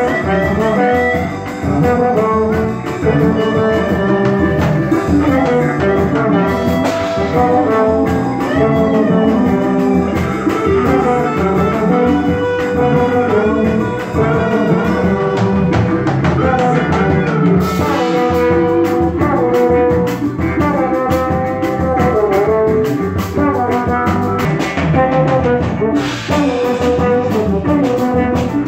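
A trombone plays the lead melody of a pagode song in long held and sliding notes over a live band of electric guitar and drum kit.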